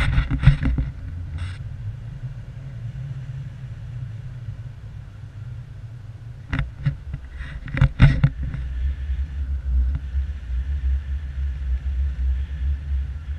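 Wind rushing over an action camera's microphone in paragliding flight: a steady low rumble that grows stronger in the second half, with a few short louder bursts.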